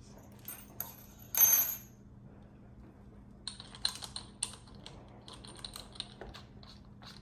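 Small metal tool pieces clinking and rattling as they are handled, with one louder metallic clatter with a brief ring about a second and a half in, then a string of light clicks and taps.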